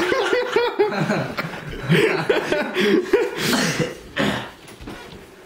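People laughing and chuckling in quick repeated giggles, dying down after about four seconds.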